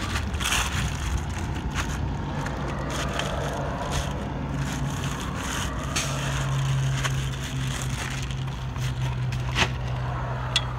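Protective sleeve crinkling and scraping as a long metal railing H-bar is slid out of it, with scattered small clicks. A steady low hum runs underneath.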